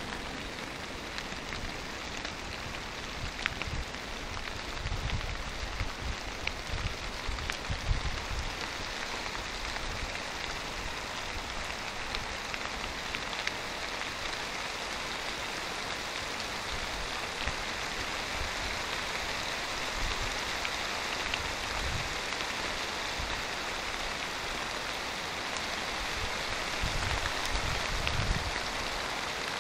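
Steady rain falling in a thunderstorm, an even hiss throughout, with a few brief low rumbles rising under it.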